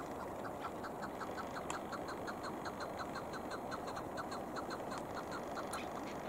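Chukar partridge calling: a rapid, even series of short chuck notes, about five a second, starting about half a second in and stopping near the end, over a steady background hiss.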